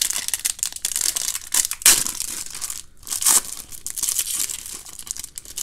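Foil trading-card pack wrapper being torn open and crinkled by hand, with louder rips about two seconds and three and a half seconds in. The pack is opening unevenly, which the opener calls "really, really wonky."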